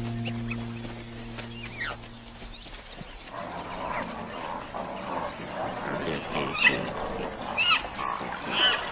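A large mixed flock of pelicans and storks calling together, a dense chatter of low grunts with sharper, higher calls getting stronger toward the end. A sustained musical drone fades out during the first three seconds before the birds take over.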